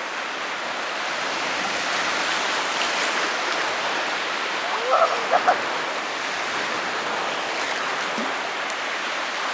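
Black Sea surf breaking and washing around the shallows, a steady rush of waves. About five seconds in, a brief voice cuts in over the water.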